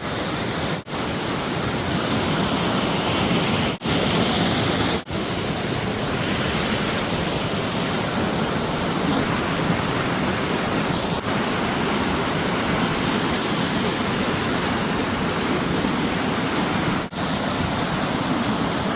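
Mountain valley stream rushing steadily over rocks, a constant loud hiss of running water, broken by a few split-second dropouts.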